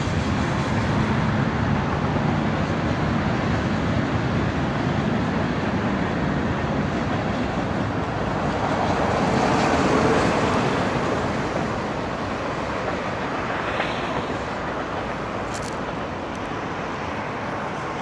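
Steady rumble of freight train cars rolling across the rail overpass, mixed with road traffic noise; the sound swells about ten seconds in, then eases off.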